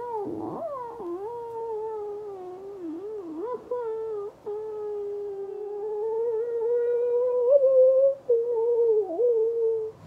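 A person making one long, wavering, cat-like wail, the pitch sliding up and down, broken only briefly a couple of times, to get the cats' attention.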